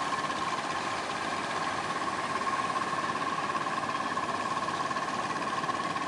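An engine running steadily with an even droning tone, over a steady hiss that fits surf breaking.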